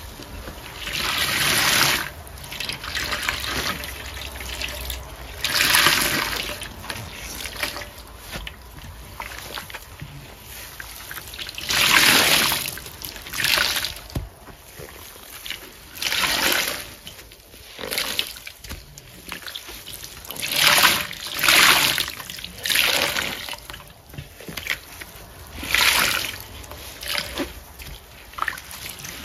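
Rubber-gloved hands squeezing and squishing a wet paste of Ajax scouring powder, making wet squelching swells that come and go every few seconds.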